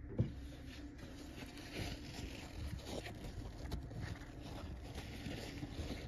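A sharp knock just after the start, then tissue paper rustling and rubbing as a fountain pen is wiped after being dipped in ink.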